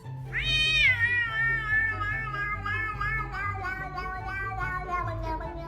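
A cat's long drawn-out meow: one call of about five seconds that rises quickly at the start, then holds and slowly sinks with a slight waver. Background music with a steady bass line plays underneath.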